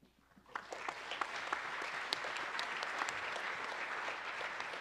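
Audience clapping: applause starts about half a second in and holds steady.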